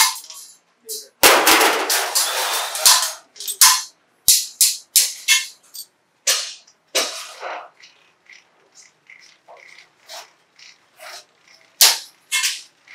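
Irregular metallic clanks and clicks of steel wire and the iron parts of a hand-cranked wire-working machine, with a longer scraping rattle a little over a second in.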